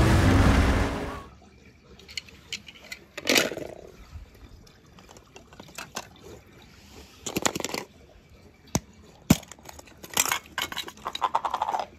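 Small toy cars knocking and clicking as they are handled and dropped, with a splash of water about three seconds in. A loud rushing sound cuts off about a second in.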